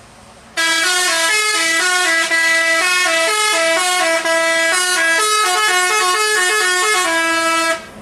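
Telolet basuri bus horn playing a quick melody of stepped notes. It starts about half a second in, runs loud and unbroken, and cuts off just before the end.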